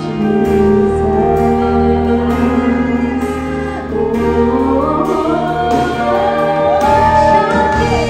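Live worship music: a woman's amplified voice singing over sustained electric keyboard chords. Her voice climbs in the second half to a held high note that falls away at the end.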